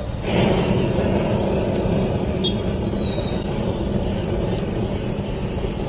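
Handheld gas blowtorch flame running steadily, a rushing noise that starts a moment in as the flame is held on shredded cheese to melt it.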